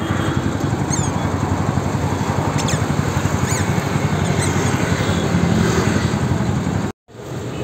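Roadside street noise: a steady low engine rumble with a fast flutter, with a few short high chirps over it. The sound cuts out for a moment near the end.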